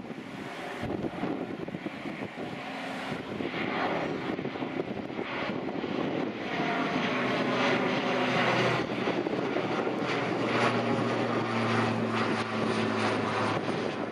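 Single-engine turboprop airplane flying overhead, its engine and propeller noise growing louder about halfway through, with a steady low drone.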